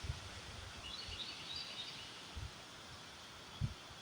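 Gusty storm wind: a steady hiss with low rumbling thumps of wind buffeting the microphone, the strongest near the end. Faint bird chirps come through about a second in.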